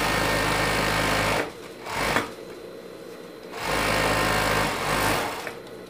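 Industrial overlock (serger) machine stitching a collar onto a knit neckline. It runs in two steady spurts of about a second and a half each, with a brief blip between them as the fabric is turned.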